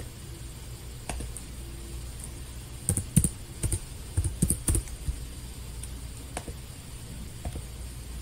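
Typing on a computer keyboard: a quick run of about ten keystrokes a little after two seconds in, with a few single clicks before and after, over a low steady hum.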